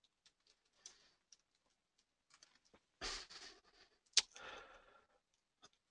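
Faint, scattered clicks of a computer keyboard and mouse, with one sharper click about four seconds in and a short soft rush of noise just before it.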